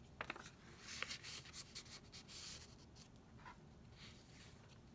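Faint paper rustling and sliding as a card is handled and slipped back into a paper library pocket in a handmade journal, with a few light clicks and swishes.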